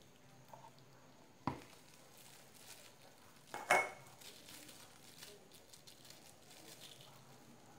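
Two knocks of plastic kitchenware set down on a granite counter, about two seconds apart, the second louder with a short ring, with faint rustling of a plastic bag being handled between them.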